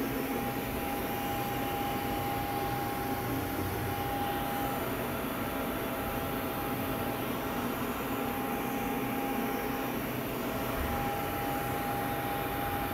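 Steady whirring hum of running shop machinery, with a faint high whine that comes and goes.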